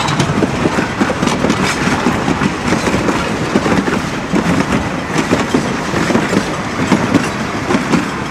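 Passenger coaches of a steam-hauled train rolling past close by, with wheels rumbling and clicking over the rail joints in a steady clickety-clack.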